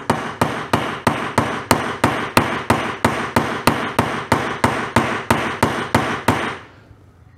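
Hammer blows on a 32 mm socket used as a driver, pounding a new wheel bearing into the rear hub of a 1992 Kawasaki KX125. The strikes are steady, about three a second, and stop near the end.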